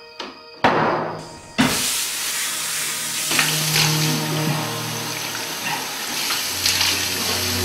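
A couple of sharp knocks, then a bathroom sink tap is turned on about a second and a half in and water runs steadily into the basin.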